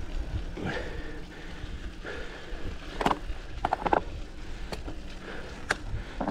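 Mountain bike riding noise: a steady low rumble of wind on the microphone, with a few sharp clicks and rattles from the bike in the second half.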